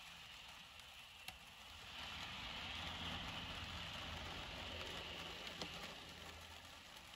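Steady hiss of heavy rain, with the tyre hiss and low rumble of a car driving past on the wet, flooded road swelling from about two seconds in and fading again near the end. Two sharp ticks, one after about a second and one near the end.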